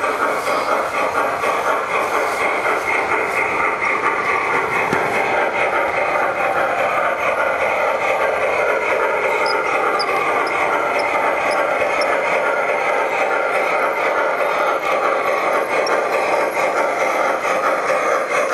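MTH RailKing Gauge 1 Big Boy model steam locomotive running on curved layout track: a steady clatter and rumble of its wheels and drive on the rails, with faint sliding squeals in the middle.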